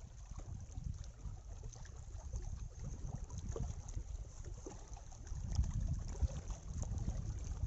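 Wind buffeting the microphone as a low rumble that grows louder about five and a half seconds in, over faint lapping of water at the shore.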